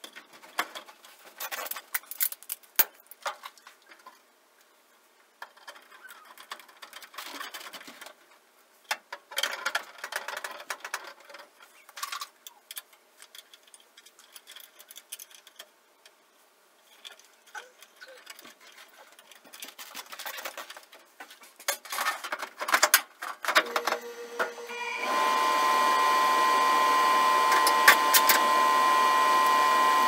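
Clicks, taps and rattles of hands working on wiring and parts inside a gas furnace cabinet. About 25 seconds in, a furnace motor starts and runs steadily with a constant whine.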